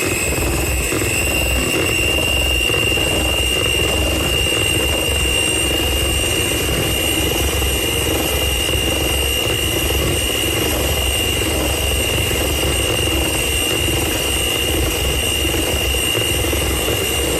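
Electric kitchen mixer motor running steadily, with a constant high whine over its low hum, mixing the cake batter.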